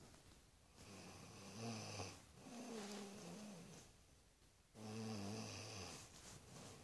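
A woman snoring while asleep, three snores in a row, each about a second long.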